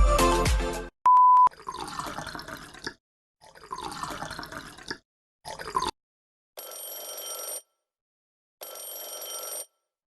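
Dance music ends, a short electronic beep follows, then three spurts of splashing water. After that a telephone rings twice, each ring about a second long and about two seconds apart.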